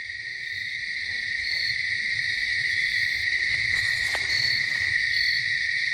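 Steady chorus of crickets: a continuous high trill with a short, higher chirp repeating about once a second.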